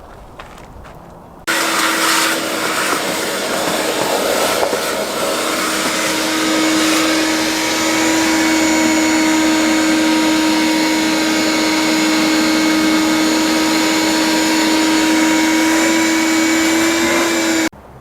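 Shop vacuum switching on about a second and a half in, running steadily with a high whine, then switching off just before the end. It is cleaning dirt and debris out of the car's air filter housing.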